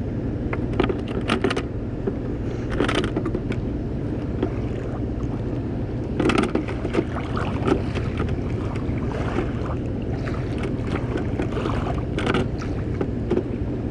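A steady low mechanical hum from a loud machine running nearby, with scattered knocks and clicks over it.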